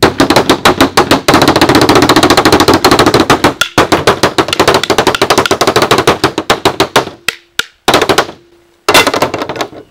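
Fast drumming on a folding tabletop with wooden sticks: a dense, loud run of sharp hits, many a second, broken by short pauses about a third of the way in and near the end.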